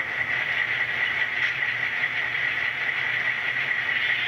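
Diesel locomotive sound playing from the ESU LokSound decoder in an HO-scale Intermountain F7 model: a steady idle hum under a constant hiss from the simulated auxiliaries, the air compressor and radiator fans having just been switched on.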